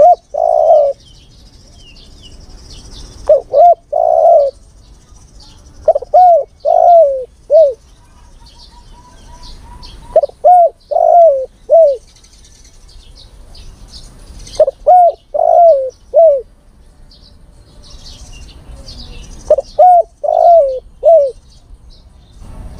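Male spotted dove giving its lure call to a female: six phrases of three or four coos each, a few seconds apart. Small birds chirp faintly in the background.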